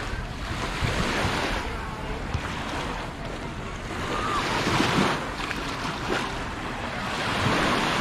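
Small waves lapping and washing up on a sandy shore, swelling louder about five seconds in and again near the end, with wind rumbling on the microphone.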